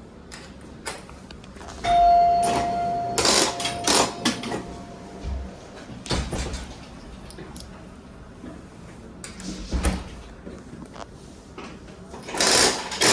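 A bell dings once about two seconds in and rings on, fading over a few seconds, among scattered sharp clattering knocks. A burst of clattering comes near the end.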